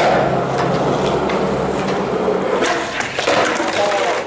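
Skateboard wheels rolling on concrete, with a few sharp clacks of the board about a second in and again near the end.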